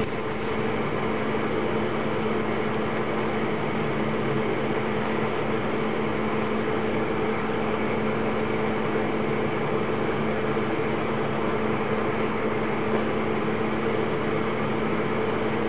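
Steady mechanical hum and hiss, unchanging throughout, with a low drone under it.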